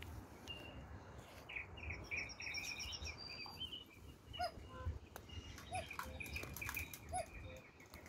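Several garden birds singing and chirping, with a short lower call repeating about every second and a half through the second half. Scattered clicks and rustles of leaves being picked close by.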